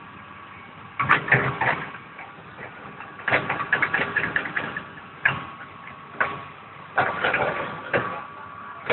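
Hitachi ZX210 excavator's diesel engine running steadily, with irregular clusters of loud knocks and clatter from about a second in.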